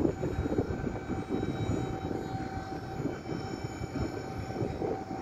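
Steady mechanical drone with a constant hum over a low rumble, like large engines or machinery running.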